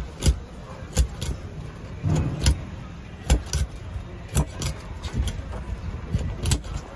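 Sharp, irregular clicks and knocks, about ten in all, as fish flesh is cut and pieces are worked against an upright curved fish-cutting blade over a wooden board.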